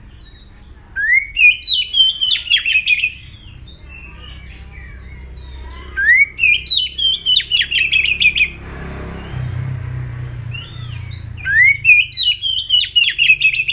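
Oriental magpie-robin singing three loud phrases, each opening with an upward-sliding whistle and breaking into a rapid run of sharp notes. A soft rushing noise falls between the second and third phrases.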